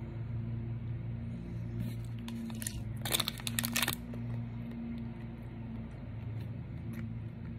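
Plastic fruit-snack pouch crinkling as fingers dig into it, a dense rustle of about a second a few seconds in, over a steady low hum.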